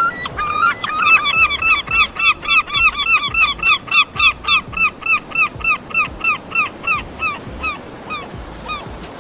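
An animal calling over and over in short arched honks, about three a second, growing fainter and sparser near the end.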